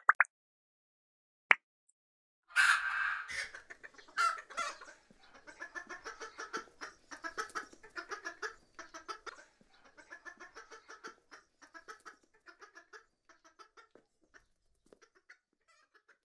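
Chickens clucking: a few sharp clicks in the first two seconds, then a loud burst of calls about two and a half seconds in, settling into rapid, steady clucking that thins and fades out toward the end.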